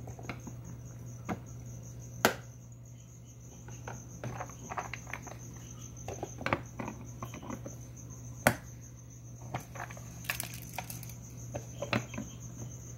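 Sharp plastic clicks and light taps as clear plastic vent pieces are handled and fitted onto the lids of plastic tarantula enclosures, with two louder clicks and scattered small rattles. A steady, pulsing high chirping of crickets runs underneath.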